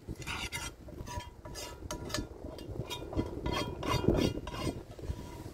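A rapid, irregular series of clinks and scrapes of hard objects, some with a short ring.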